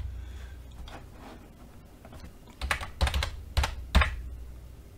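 Keystrokes on a computer keyboard: after a quiet stretch, a handful of sharp clicks in the second half, over a low steady hum.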